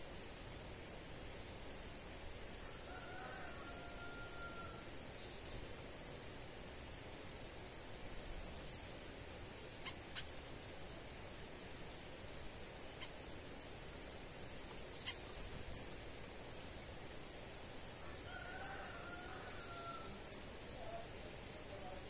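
Birds calling: short, sharp, very high chirps scattered irregularly, bunching about two-thirds of the way through, with the loudest just before the end. Twice, a faint longer whistled note sounds lower down.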